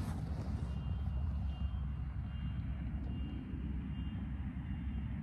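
Riding lawnmower engine running steadily with a low drone, with a faint short high chirp repeating a little more than once a second.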